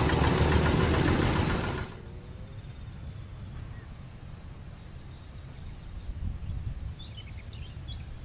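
Single-cylinder diesel engine of a two-wheel hand tractor running loudly, which stops abruptly about two seconds in. A quieter, uneven low rumble follows as another hand tractor's diesel is hand-cranked, with a few faint clicks near the end.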